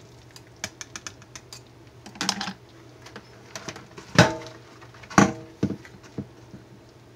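A metal stick blender, switched off, scraping and clicking in thick soap batter, then two loud metal clanks with brief ringing about four and five seconds in as it is lifted out and knocked down, followed by two lighter knocks.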